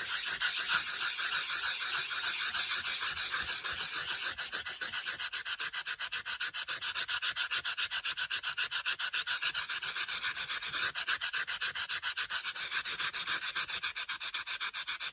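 Sanding block rubbed in quick back-and-forth strokes over dry-embossed white-core cardstock, a steady scratchy hiss that turns into an even stroke rhythm about four seconds in. The sanding scuffs the coloured surface off the raised embossing to bring out the white core.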